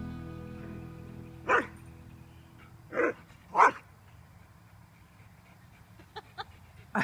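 Greyhound barking: three sharp single barks in the first four seconds, then two faint yips and another bark near the end.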